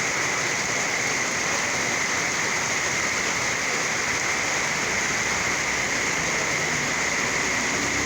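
Steady rain falling, an even, unbroken hiss of many drops with no single drop or event standing out.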